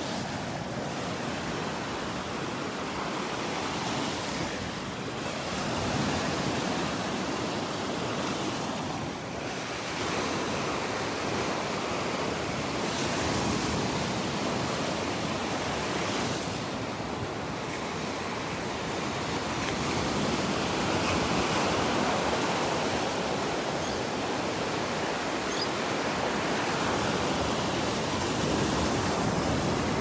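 Small waves washing onto a sandy beach in a steady surf hiss that swells and eases every few seconds.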